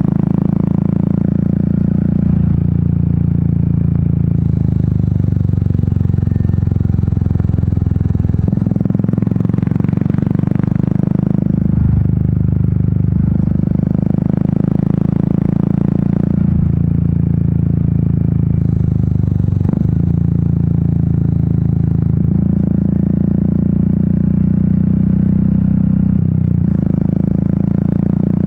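Royal Enfield Meteor 350's 349 cc single-cylinder engine and exhaust running under way, its note shifting in steps every few seconds as throttle and speed change.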